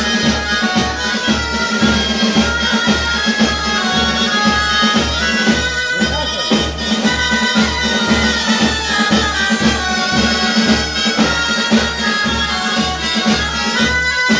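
Dulzainas, Castilian double-reed shawms, play the melody of a pasodoble. A snare drum and a bass drum keep a steady march beat under it.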